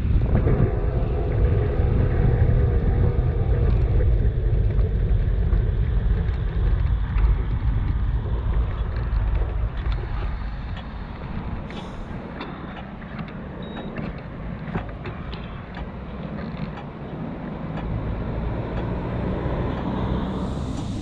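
Wind buffeting the microphone and road noise from a bicycle being ridden. The rumble is heavy for the first half and eases off about halfway through, with scattered small clicks and rattles after that.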